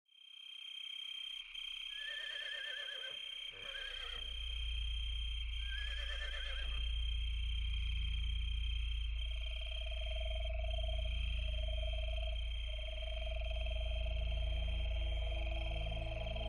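Wild mustang horses whinnying: three quavering calls in the first seven seconds, over a low rumble. From about nine seconds in, a steady held tone comes in.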